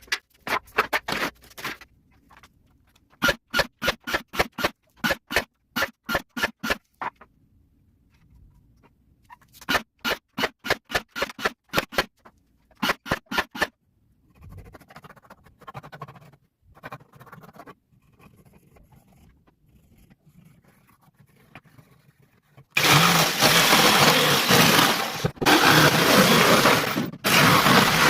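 Sped-up woodworking sounds on pallet wood: runs of rapid, evenly spaced knocks, then a loud steady power-tool noise broken by short gaps near the end.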